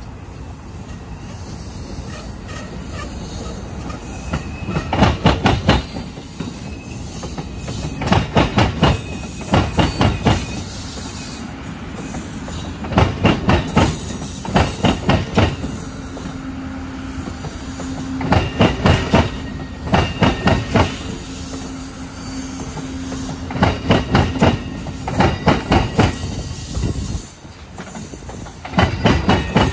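Amtrak passenger cars rolling slowly in reverse over a railroad–streetcar diamond crossing. Each passing pair of trucks makes a loud cluster of wheel clacks as the wheels drop through the crossing's gaps, coming every few seconds over a steady rolling rumble with some wheel squeal.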